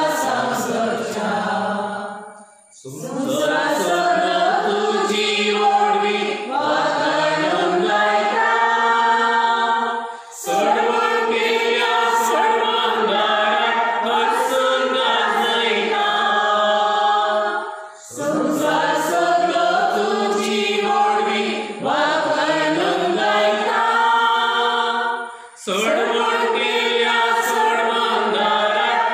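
Devotional hymn of thanksgiving sung by voices in long, slow phrases, with short breaths about every seven to eight seconds.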